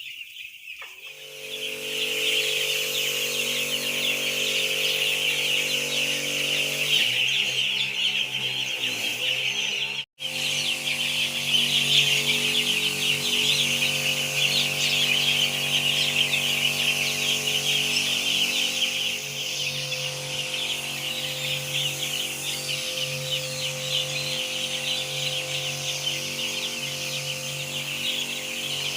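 A large flock of young broiler chicks peeping continuously in a dense, high-pitched chorus, over a steady low hum. The sound drops out for an instant about ten seconds in.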